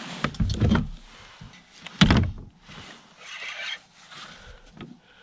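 Hollow knocks and thumps against a kayak hull, several close together near the start and one loud knock about two seconds in.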